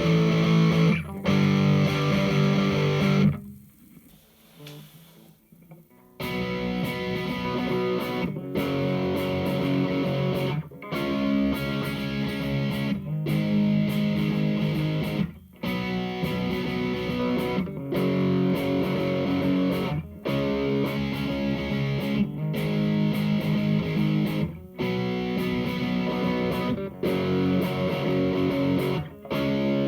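Electric guitar played through a Hughes & Kettner Attax Metroverb transistor amp on its overdrive channel: a repeating chord riff in phrases of about two and a half seconds, each ending in a brief gap. Near the start it stops for a couple of seconds, then the riff comes back.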